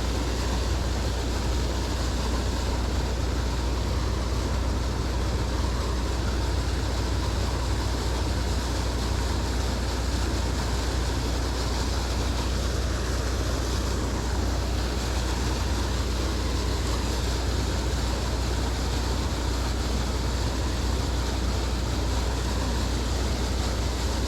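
Steady rushing of water pouring through a creek falls, a continuous noise with a deep rumble underneath and no breaks.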